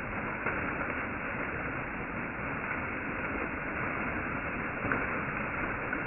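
Small waterfall streaming and splashing down a rock face: a steady, muffled rush of falling water.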